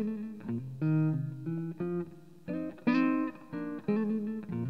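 Guitar playing the instrumental intro of a song: a run of picked notes and chords, each struck and left to ring and fade.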